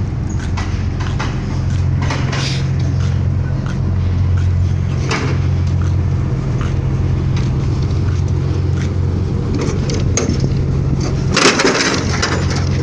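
Steady low drone of a ship's machinery, with scattered knocks and clicks over it and a louder clattering scrape about eleven seconds in.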